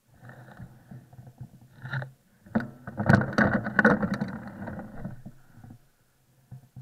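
A bicycle rolling over a packed snow trail, with a muffled rumble and rattle from its tires and frame. It is loudest about halfway through, with several sharp knocks as the bike jolts over bumps.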